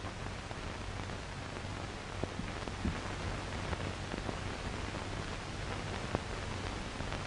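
Steady hiss and a low hum from an old film soundtrack, with a few scattered clicks and pops.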